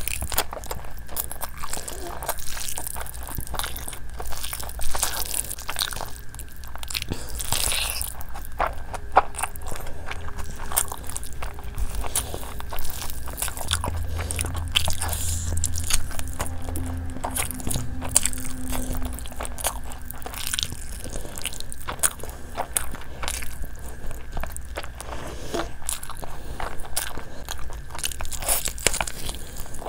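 Close-miked eating: a person biting into and chewing spicy fried chicken and fried rice, with many short crunches and mouth clicks throughout.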